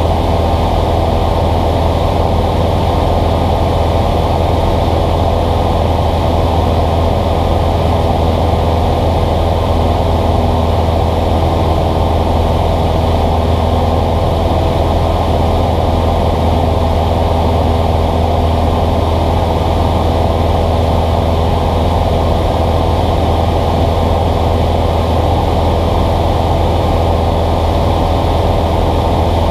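Cessna 172's piston engine and propeller running steadily in flight, heard inside the cabin as a loud, even drone with a strong low hum.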